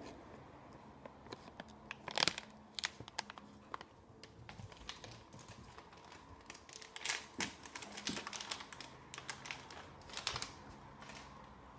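Shiny plastic dog-treat bag crinkling and rustling as it is handled, in irregular crackles, with louder bursts about two seconds in and twice more later.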